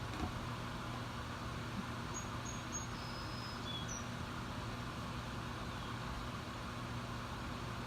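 Steady background hum and hiss, with a few short, high bird chirps about two to four seconds in.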